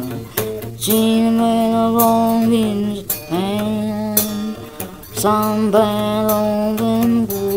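Music with a voice singing long held notes, phrases of a second or two that slide in pitch as they begin or end.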